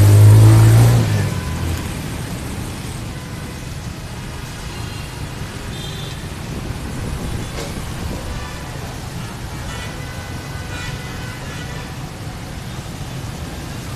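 A heavy vehicle's engine running close by, a low drone loudest in the first second and fading over the next, followed by a steady din of street traffic.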